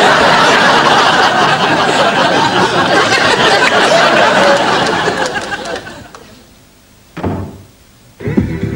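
Loud laughter from many people, an audience reacting to a joke, fading away about six seconds in. Near the end comes a short knock, then electronic dance music with a steady beat starts.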